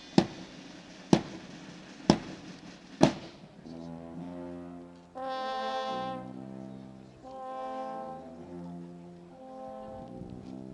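Massed military band on the march: four drum-and-cymbal strikes about a second apart, then the brass comes in with long, sustained chords in short phrases.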